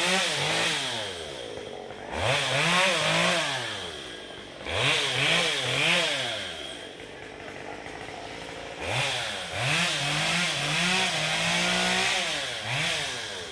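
Chainsaw engine revving up and dropping back to idle again and again, with a rising and falling whine and a hiss at each rev.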